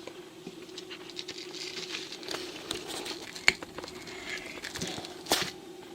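Soft rustling and light clicks of kitchen handling as honey is readied to fill a cored quince, with two sharper clicks about three and a half and five seconds in. A faint steady hum runs underneath.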